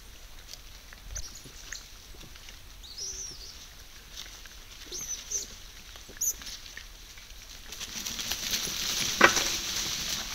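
A band of South American coatis rooting and shuffling through dry leaf litter, a soft crackly rustle broken by a few short high chirps. Near the end the rustling grows louder, with one sharp thump.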